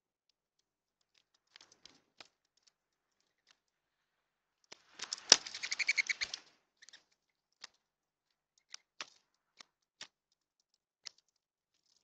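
Mourning doves at a seed feeder: scattered light clicks of pecking at seed on the feeder tray, and about five seconds in a flurry of wing flapping lasting about a second and a half, with a sharp clap near its start.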